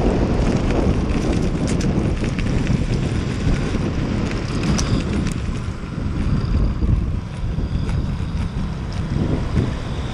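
Electric mountainboard riding at speed: steady rumble of its pneumatic tyres on the path, mixed with wind buffeting the microphone, and a few sharp clicks as the wheels cross joints in the concrete. A high whine from the twin electric motors and helical gear drives comes and goes, rising again near the end.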